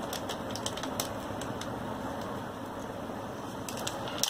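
Small plastic packets and plastic camera mounts being handled: scattered light crinkles and clicks, several close together near the end, over a steady background hiss.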